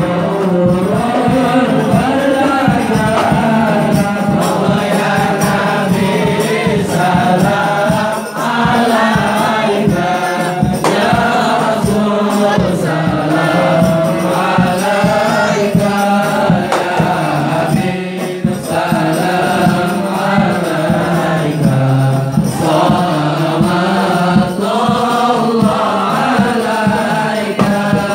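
A group of men singing an Islamic devotional chant together in chorus, with hand-drum beats keeping time.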